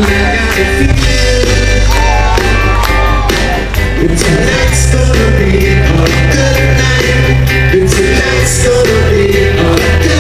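Live band playing through a PA system, with a singer over a steady bass line and drums.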